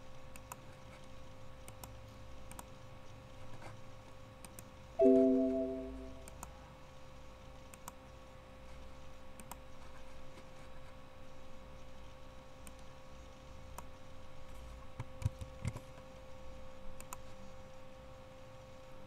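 Faint computer mouse clicks over a steady electrical hum. About five seconds in, one short chime of several tones at once sounds and fades out over about a second.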